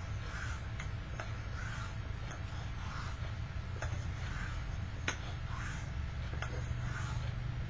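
Straight razor drawn across a wet hone in steady passes, a soft scrape about every 1.3 seconds, with light clicks between strokes. A steady low hum lies underneath.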